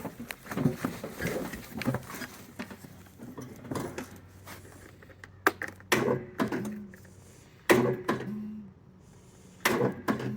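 Ariens 20-horsepower lawn tractor's electric starter tried three times in the second half, a second or two apart: each try a sharp clunk with a brief low hum, and the engine does not turn over. The owner traces this to compression lock, with the starter's Bendix gear jammed up in the flywheel.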